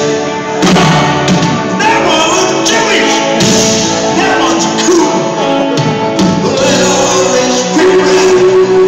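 Live band music with singing, loud and continuous, heard from the audience at an arena concert.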